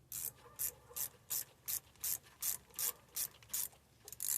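Ratchet wrench clicking in short, evenly paced strokes, about ten of them at nearly three a second, then a couple of quicker strokes near the end.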